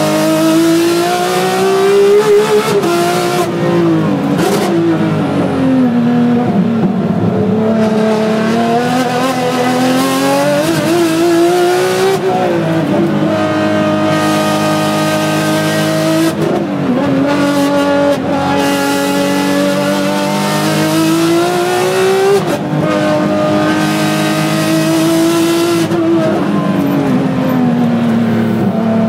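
Ferrari 599XX's V12 engine heard from inside the cockpit, pulling hard with its pitch climbing and then dropping sharply several times, as when accelerating through gear changes and braking. The pitch swings up and down repeatedly and holds steadier for a few seconds about three-quarters of the way in.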